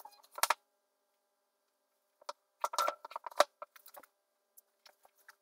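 Books being handled on a wooden bookshelf while someone searches through them: a couple of short knocks just after the start, then a run of light taps and clicks from books being shifted and pulled out a couple of seconds in.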